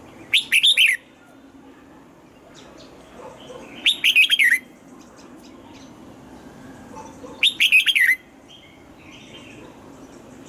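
Red-whiskered bulbul singing three short phrases about three and a half seconds apart, each a quick run of several whistled notes that rise and fall.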